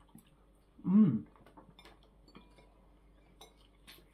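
A person eating, with an appreciative "mmm" hum about a second in, followed by faint scattered clicks and smacks of chewing and biting into a chili-cheese hot dog.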